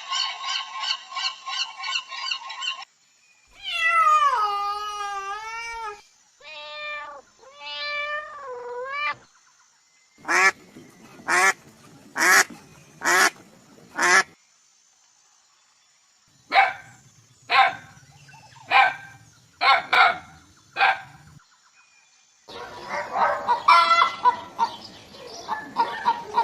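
A sequence of separate clips of animal calls: a rapid pulsed chatter, then a long call that falls in pitch, a run of shorter calls, sets of four and then six short, loud calls with pauses between, and dense overlapping calling near the end.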